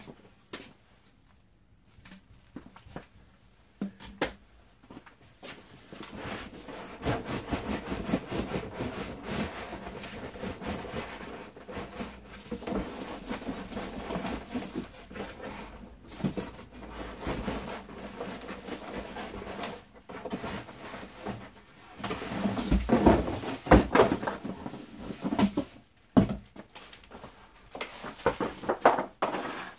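Cardboard box and plastic packaging being handled and rustled during unboxing, with scattered knocks and scrapes and louder handling near the end.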